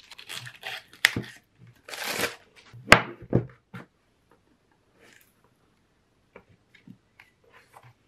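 Clear plastic shrink-wrap being torn and crinkled off a cardboard box, with two sharp snaps among the crackling. After that only a few faint light taps and clicks, as the box is handled and opened.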